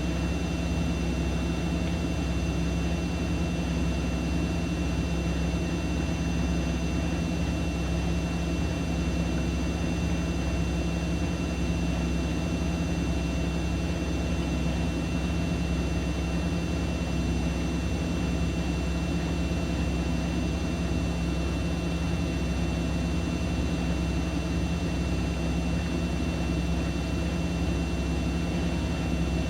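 Siemens Siwamat iQ 716 washing machine running at a constant speed: a steady, unbroken motor and drum hum with a thin high whine over it.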